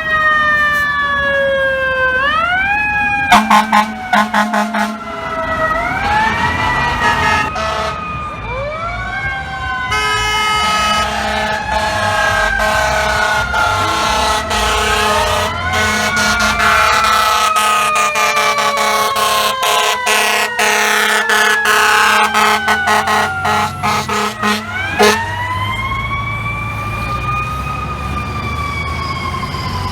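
FDNY fire truck's mechanical siren winding up quickly and slowly falling, several times over, with air horn blasts: a stutter of short blasts a few seconds in and long blasts through the middle.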